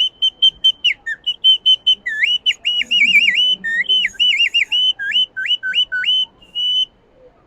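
A handmade Amazonian bird-call whistle (collo) blown in a quick run of short chirping notes, mixed with warbling trills and swoops that dip down and come back up, imitating a bird's call. It stops near the end.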